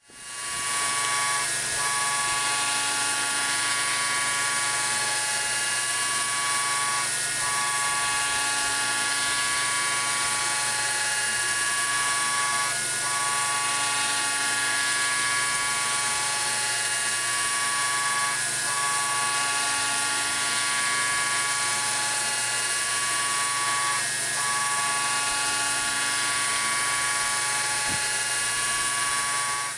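KAMIOKA VMC-800 vertical machining center milling a cone-shaped mold under coolant: a steady high whine from the spindle and cutter, with a brief dip in the tone about every five and a half seconds. It fades in at the start and out at the end.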